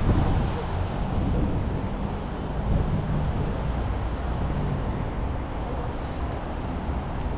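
City street traffic noise: a steady rumble of passing motor vehicles, with an engine hum showing more plainly a second or two in.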